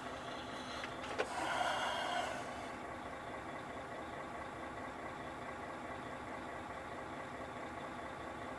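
Semi-truck's diesel engine idling steadily, heard from inside the cab. There is a click about a second in, followed by a faint tone lasting about a second.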